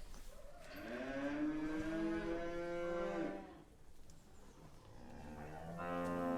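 Domestic cow mooing: one long moo of about three seconds, then a second moo beginning near the end.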